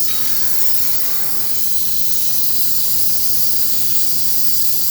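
Oxy-acetylene torch flame hissing steadily while brazing a hard-drawn copper discharge-line tube.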